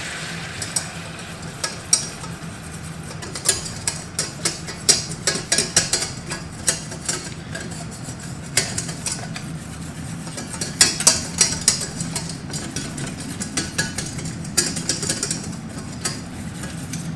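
Wire whisk clinking and scraping against a stainless steel saucepan in quick, irregular taps as flour is whisked into melted butter to make a roux. A steady low hum runs underneath.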